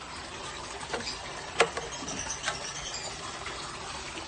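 A bucket of water with fish in it being carried: scattered knocks and handling noise, the loudest a single sharp knock about one and a half seconds in.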